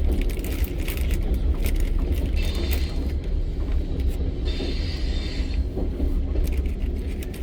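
Passenger train carriage running on the rails: a steady low rumble with a continual rattle and clicking of the wheels and car, and two short hisses a little before and after the middle.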